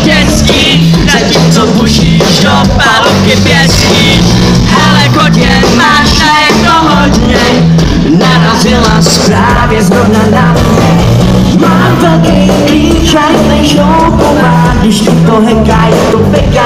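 Live rock band playing loud: electric guitar, bass and drums with a steady beat, and a voice singing over them.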